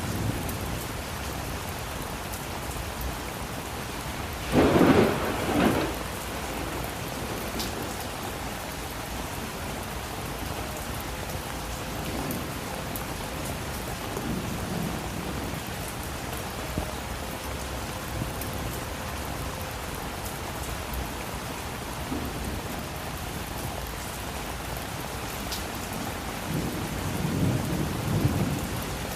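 Steady rain in a thunderstorm, with a loud crack of thunder about five seconds in and a lower rumble of thunder near the end.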